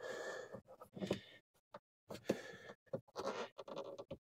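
A man grunting and breathing hard with effort in short, irregular bursts while forcing a thick dash cam cable through the small hole in a car liftgate's rubber wiring boot, with the cable rubbing against the rubber.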